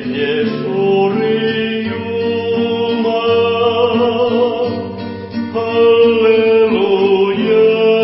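Music: a song in Votic, a voice holding long, slightly wavering notes over instrumental accompaniment.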